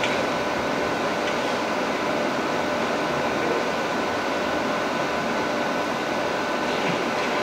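Steady background hiss with a faint constant hum, like ventilation noise in a hall, unchanging throughout.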